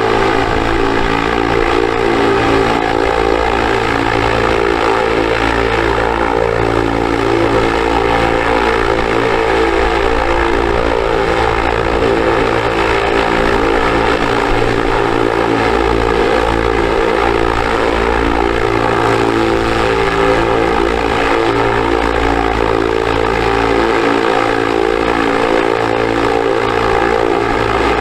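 Spinning drone propellers humming steadily: a dense, even whine that holds one pitch throughout.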